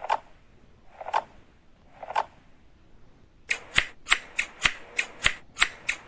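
Hair-brushing sound effect: soft brush strokes about once a second, then from about three and a half seconds a quicker run of sharp clicks, about three a second.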